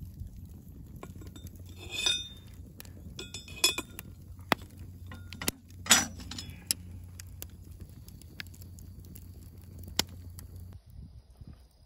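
Cast-iron Dutch oven lids and a metal lid lifter clinking against the pots and the steel grate over a wood fire. It comes as a handful of separate clinks, the loudest about halfway through, over a steady low rumble that fades near the end.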